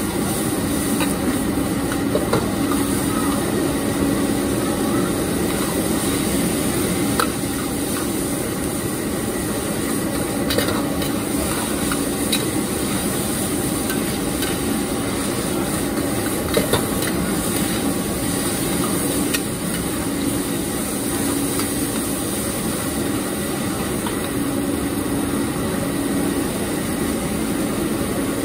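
Stir-frying in a wok: a metal ladle and spatula scraping and knocking against the wok while the food sizzles, with a few sharp clanks. Under it runs the steady rushing noise of the wok stove's burner.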